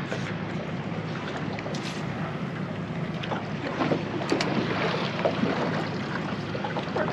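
Steady wind and water noise on a small boat at sea, with a few scattered light knocks.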